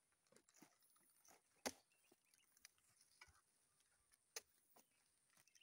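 A few faint, sharp knocks, the loudest about a third of the way in, from oil palm fruit bunches being handled with a hook.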